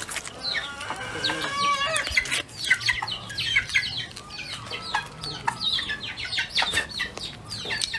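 Chickens clucking, with many short high-pitched calls in quick succession.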